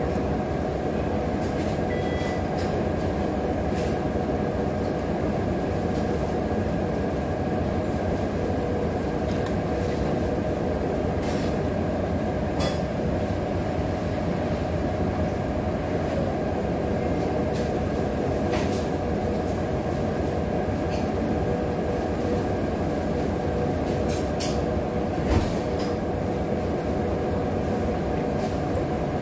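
Steady loud low mechanical drone with a faint hum running through it, broken by a few light clicks and one sharper knock about 25 seconds in.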